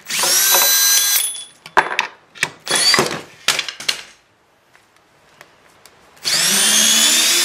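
Milwaukee 18V cordless drill run in reverse, backing lag bolts out of a 4x6 timber: the motor whines up in pitch for about a second, gives short trigger bursts with clicks of bolt and socket handling, goes quiet, then runs again under load from about six seconds in.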